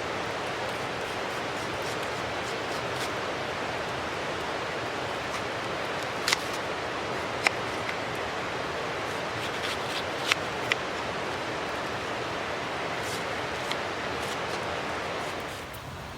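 Wood campfire burning: a steady rushing hiss with a few sharp crackling pops scattered through it. The hiss drops away near the end.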